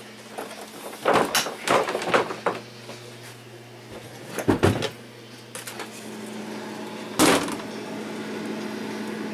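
A door being opened and shut: a cluster of knocks and rattles about a second in, two thuds midway, and a single sharp bang near the end, over a steady low hum.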